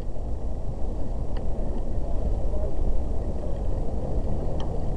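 Wind rumbling on a boat-mounted microphone and water rushing along the hull of a racing eight under way, with two faint knocks about a second and a half in and near the end.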